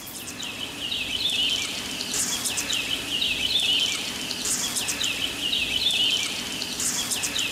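Outdoor nature ambience: clusters of short, high chirping calls repeated every second or so over a steady hiss.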